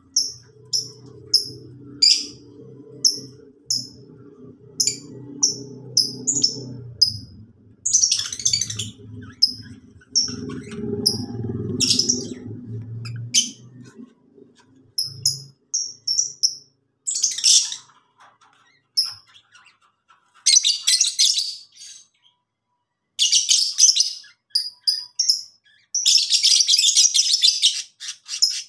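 Lovebirds calling: a run of short, sharp high chirps repeated over and over, breaking into dense chattering bursts that become heaviest near the end. A low steady hum runs underneath for about the first half, then stops.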